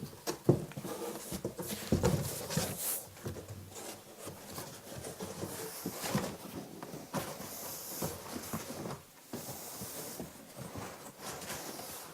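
Cardboard cartons rubbing and scraping together as one box is slid down over another, with irregular rustles and light knocks.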